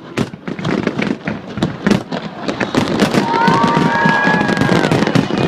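Fireworks display going off in quick succession: rapid bangs and crackles that thicken into a dense, louder crackle about three seconds in, with a brief whistling tone over it.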